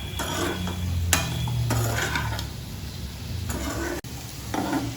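Spatula stirring and scraping sautéing onions, broccoli and mushrooms in a pan, in several separate scrapes about a second apart, over a low steady hum.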